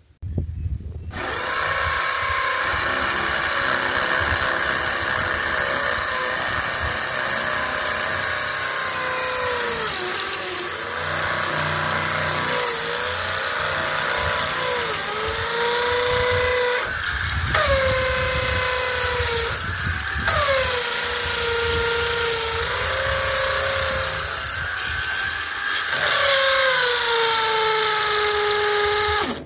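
Corded electric drill running at the top of a masonry wall, starting about a second in and running steadily. Its whine sags in pitch several times as the bit bites under load, then climbs back.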